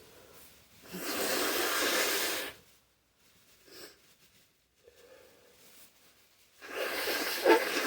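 A person breathing heavily after a sneeze: a long, hissy breath about a second in, then quiet, then another noisy breath near the end with a brief voiced catch in it.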